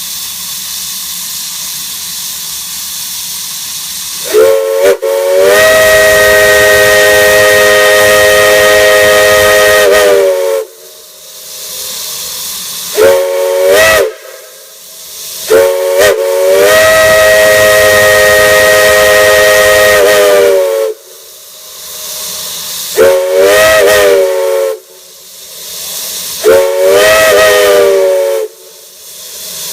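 Chime steam whistle blown in a series of blasts, a chord of several notes at once. Long blasts of four to five seconds alternate with short toots, some sliding up in pitch as they start, and steam hisses steadily between them.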